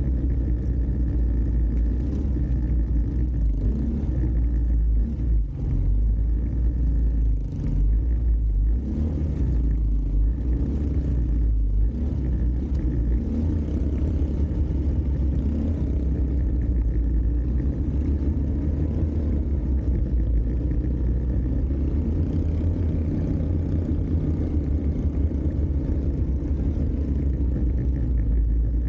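ATV engine running steadily during a trail ride under a constant low rumble, with a few brief clatters between about four and twelve seconds in.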